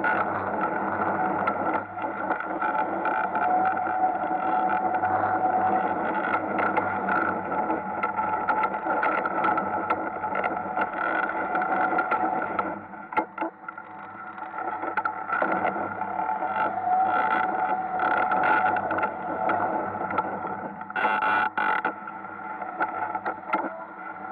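Ice kart's motor running hard while lapping the ice track, its pitch rising as it accelerates out of turns. Its loudness drops briefly about halfway as the throttle comes off, then picks up again.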